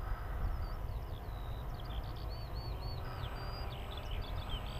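A songbird singing a run of quick chirps and whistles over a steady low rumble of wind on the microphone.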